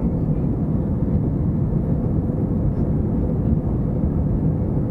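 Steady cabin noise of an Airbus A320 in its climb after takeoff: engine and airflow noise through the fuselage, a deep even rumble with a faint steady hum.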